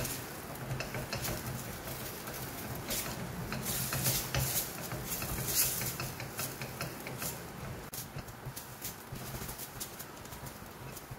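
Wooden spatula scraping and knocking against a stainless steel pan while stirring thick rice rava dough, a quick irregular run of clicks and scrapes over a steady low hum. The dough is being worked until it draws together into a thick mass.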